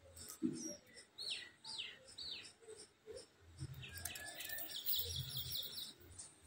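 Small birds calling: three quick falling chirps, then a fast trill of repeated high notes about two-thirds of the way through.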